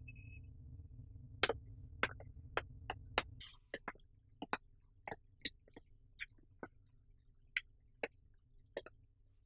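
Footsteps of hard-soled shoes on a tiled floor: faint, sharp clicks about two a second, irregular, over a low hum that drops away about three and a half seconds in.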